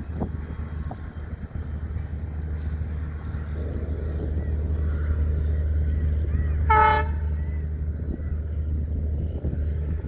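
Passenger train of LHB coaches rolling past with a steady low rumble that slowly grows louder. About seven seconds in, the locomotive's horn gives one short toot.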